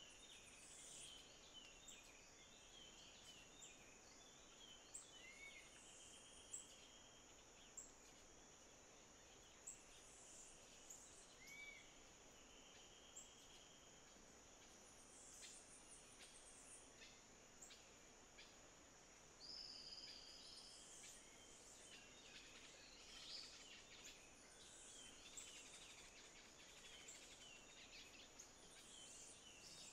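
Faint forest ambience: a steady high-pitched insect drone, with scattered chirps, short trills and whistled calls of small birds.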